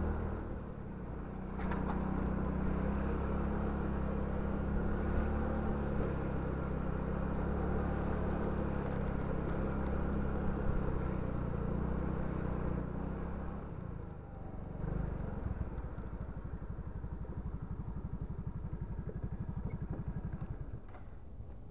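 Motor scooter engine running while riding, with a steady low hum and a rush of air noise. About two-thirds through it slows and settles into a fast, even chugging idle, which fades near the end.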